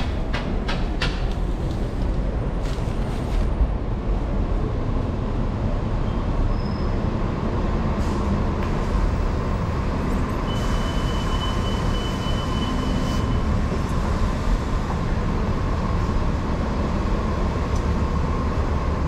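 City street traffic with a bus running close by: a steady low engine rumble, with a thin high whine held for a few seconds near the middle. A run of quick ticks, about three a second, stops about a second in.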